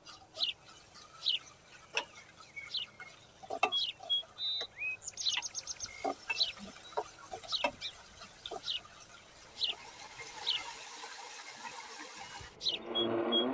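A bird chirping over and over, short high falling chirps about once a second, over a few sharp clicks of a spatula against a wok and a faint sizzle of diced chicken frying in oil.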